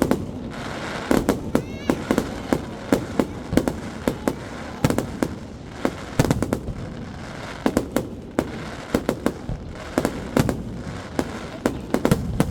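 Fireworks display: aerial shells bursting in a rapid, irregular series of sharp bangs, often several a second.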